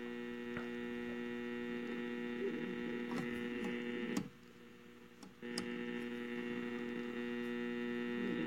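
Steinite 261 tube radio's speaker giving a steady mains hum while the dial is tuned between stations. The hum cuts out for about a second near the middle and then returns, with a few faint clicks.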